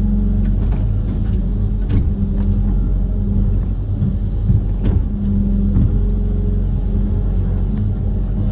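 Kobelco SK130 amphibious excavator's diesel engine running steadily, with a few short knocks from the machine, the loudest about five seconds in.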